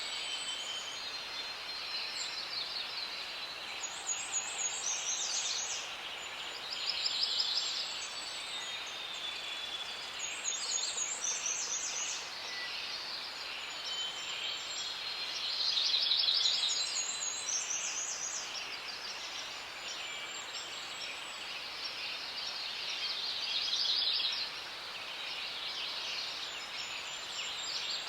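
Forest ambience: several birds singing together, overlapping trills and chirps that swell and fade every few seconds, over a steady background hiss.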